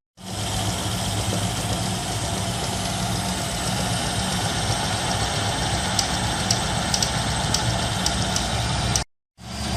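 A 3D printer running: a steady mechanical hum of its motors and fans, with a run of small quick clicks in the second half. The sound breaks off briefly near the end and starts again.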